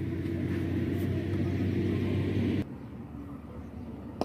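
Steady low mechanical hum with a few held tones, like an engine running. It cuts off abruptly about two and a half seconds in, leaving fainter outdoor background, with a short click near the end.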